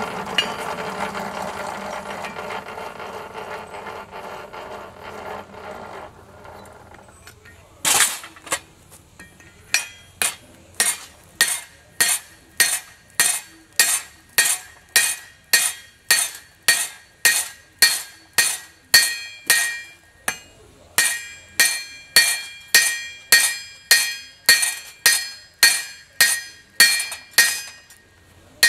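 A machine's steady running sound dies away over the first few seconds, then a blacksmith's hammer strikes steel on an anvil in a steady rhythm, about three blows every two seconds, each blow ringing.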